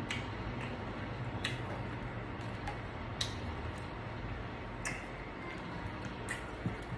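A person eating a seafood boil: five short, sharp clicks over a steady low hum, about one every second and a half.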